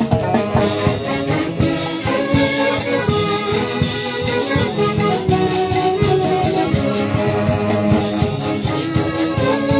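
A dance orchestra playing saxophone-led brass melodies over a steady beat, in the style of a Peruvian orquesta típica.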